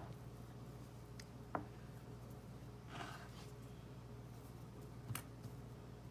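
Quiet handling sounds of pie dough being pressed into a pie pan by hand: a couple of soft knocks and a brief rustle over a steady low hum.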